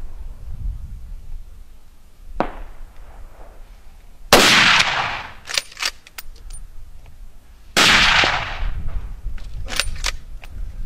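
Two loud gunshots about three and a half seconds apart, each trailing off in a long echo. A fainter, more distant shot comes a couple of seconds in, and short sharp clicks follow each loud shot.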